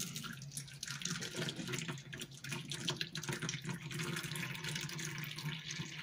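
Pasta cooking water pouring in a steady splashing stream from the drain spout of a Tupperware Microwave Pasta Maker into a plastic measuring cup in a stainless steel sink.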